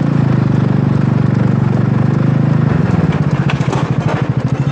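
Wolf Rugby 150cc scooter engine running steadily at a slow riding pace, a fast, even pulsing beat close to the handlebar-mounted microphone.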